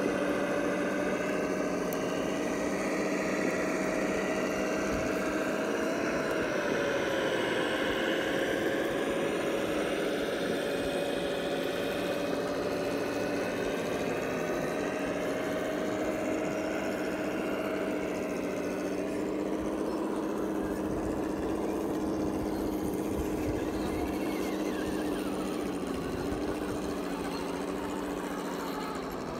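Scale RC crawler's electric motor and gears whining steadily as it crawls slowly under load, the pitch dipping briefly about seven seconds in.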